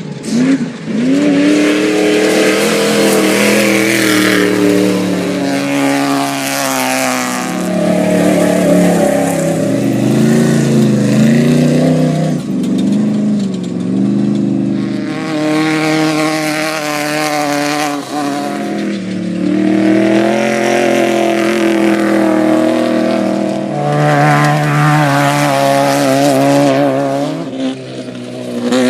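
Off-road race vehicle's engine running hard over the course, its pitch repeatedly climbing as it revs up and dropping as the driver lifts off or shifts.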